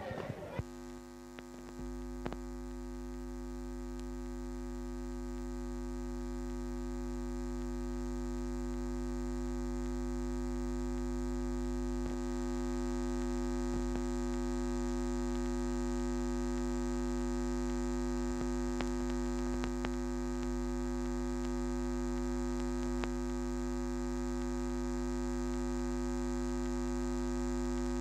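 Steady electrical mains hum with a buzzy stack of overtones, slowly getting a little louder, with a few faint clicks. The crowd noise cuts off about half a second in.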